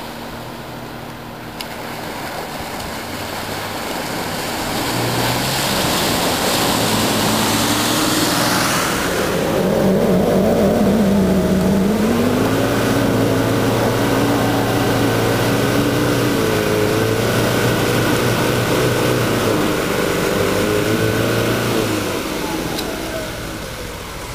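Off-road 4x4 pushing through deep water, its engine under load with a rising surge of water noise that cuts off about nine seconds in. Then the engine revs hard with the pitch rising and falling as a tyre spins in mud, fading near the end.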